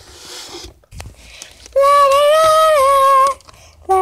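A young girl's voice singing one long held note, starting a little before halfway and lasting about a second and a half, its pitch stepping up slightly and then back down.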